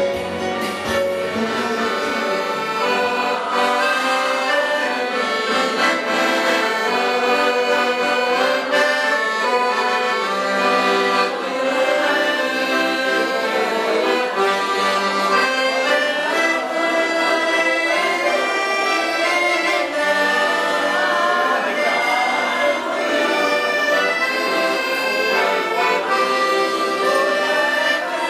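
Piano accordion playing a traditional tune without pause, with held chords under the melody.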